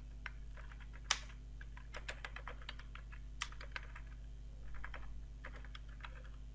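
Typing on a computer keyboard: a run of irregular key clicks, with one sharper keystroke about a second in, over a faint steady low hum.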